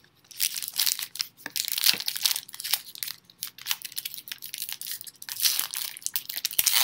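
Crinkling and tearing of a foil trading-card pack wrapper being opened and handled, a dense run of irregular crackles.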